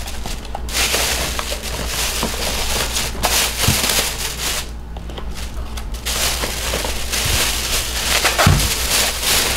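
Thin black plastic carrier bag crinkling and rustling in uneven bursts as it is handled and its top gathered closed, with a short lull about five seconds in.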